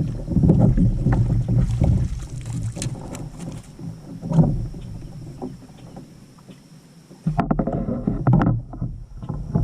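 Water splashing and irregular knocks and bumps around a fishing kayak. It is loudest in the first two seconds and again after an abrupt change about seven seconds in.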